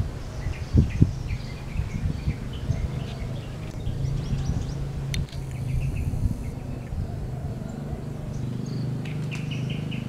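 Yellow-vented bulbuls giving short chirping calls in scattered runs. Underneath is a steady low hum, and there are two low thumps about a second in.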